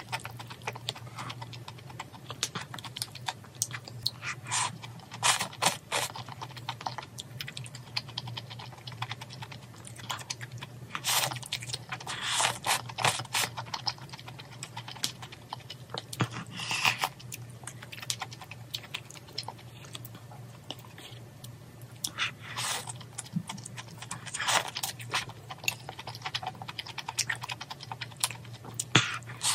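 Close-miked eating sounds: irregular clusters of sharp clicks from chopsticks against plastic bowls, with chewing of malatang noodles and crispy pork.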